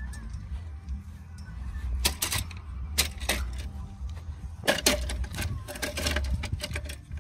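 Irregular clicks and knocks, some in quick clusters of two or three, over a steady low rumble.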